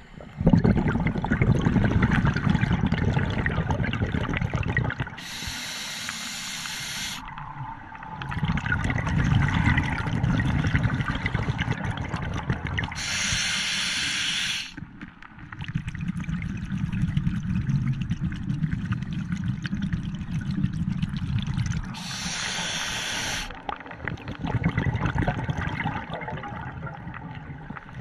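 A scuba diver breathing through a regulator, heard underwater: long stretches of low, rumbling exhaled bubbles alternate with three short hissing inhalations through the demand valve, about every eight seconds.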